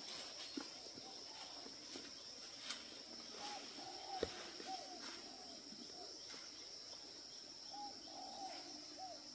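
Outdoor ambience: a steady high insect drone, with a bird repeating short arched call notes in small groups. There is one sharp tap about four seconds in.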